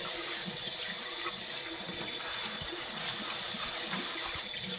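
Kitchen tap running steadily onto plates in a sink as dishes are washed by hand.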